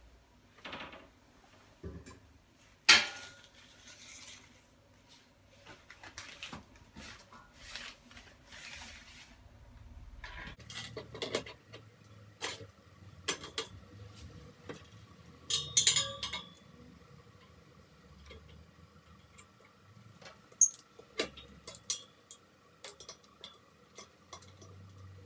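Scattered metallic clinks and knocks as a chrome ladder-style towel radiator is handled and fitted onto its wall brackets, with one sharp knock about three seconds in and a close cluster of clinks a little past halfway.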